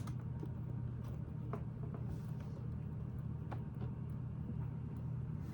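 Lego plates being handled and pressed onto a build, giving a few scattered small clicks over a steady low hum.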